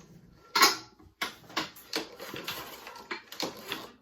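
Kawasaki FJ180V single-cylinder mower engine turned over by hand with the recoil starter, with an irregular scraping clatter that sounds like plastic scraping on metal, which the owner puts down to the plastic fan under the flywheel nut rubbing.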